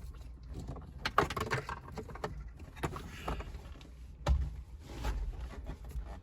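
Handling noises behind a car's plastic dash: irregular clicks, rustles and knocks as cables are fed through, with the loudest knocks about a second in and just after four seconds.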